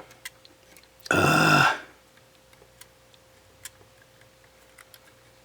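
A man's short wordless vocal sound, about a second in, amid faint scattered small clicks of work on the camera's parts.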